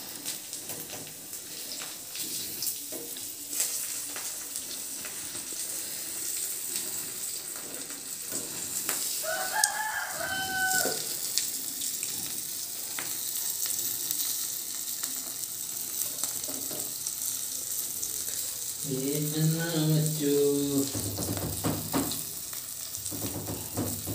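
Pieces of dried fish sizzling steadily in hot oil in a small iron pan on a gas stove, with a rooster crowing once about ten seconds in.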